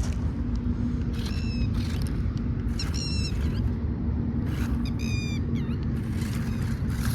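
Radio-controlled off-road car's motor running with a steady hum, while a bird calls three times, each a short run of quick repeated notes, about one, three and five seconds in.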